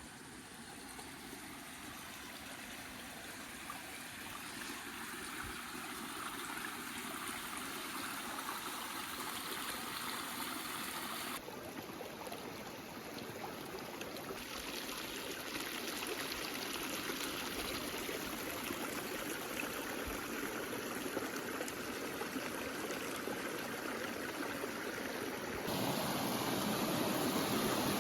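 Stream water rushing steadily, a continuous hiss of flowing water that grows gradually louder and shifts abruptly in tone twice, about 11 and 26 seconds in.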